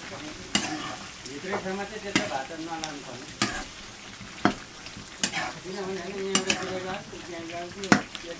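Pork intestine sizzling as it fries in a pan, stirred with a utensil that knocks and scrapes against the pan about eight times.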